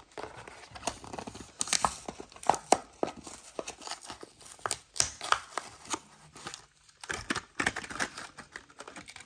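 Packaging of a Matchbox die-cast toy car being torn open and handled, with irregular crinkling, crackling and snapping of card and plastic.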